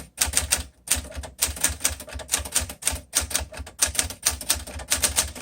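1952 Smith Corona Sterling manual typewriter being typed on: a quick run of key strikes as typebars hit the platen, several clicks a second with short pauses between words.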